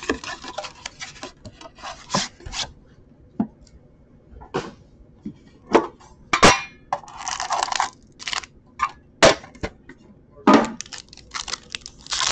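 A sealed hockey card box being unwrapped and opened by hand: scattered sharp clicks and taps of the cardboard box, with short bursts of plastic wrap crinkling in the second half.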